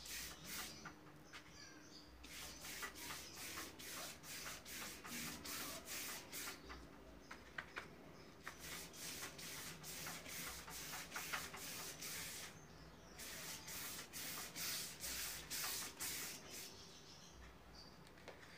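Faint, rapid swishing of a paintbrush scrubbed back and forth over a painting board, laying on paint in runs of several strokes a second with short pauses between them.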